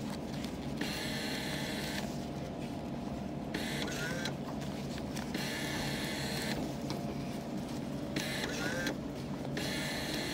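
Vending machine bill acceptor whirring in several short spells as dollar bills are pulled in and validated, each one accepted and credited. A steady low hum runs underneath.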